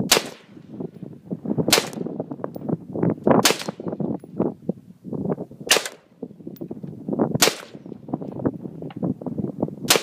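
AR-15 rifle firing single .223/5.56 shots, five sharp cracks about two seconds apart with a jumble of lower rustling between them. Right at the end a shot sets off the one-pound tannerite charge in the microwave, which detonates.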